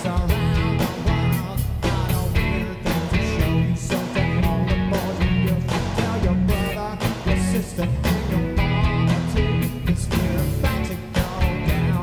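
Disco-funk band playing live with a lead singer: a steady drum beat, bass and guitar under the vocal.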